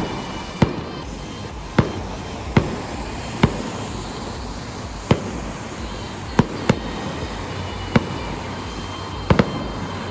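Fireworks exploding: about ten sharp bangs at irregular intervals, two in quick succession near the end, over a steady background rumble.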